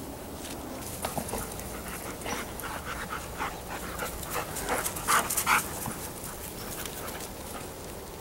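Two dogs playing, panting with a quick string of short vocal sounds. The two loudest come about five seconds in.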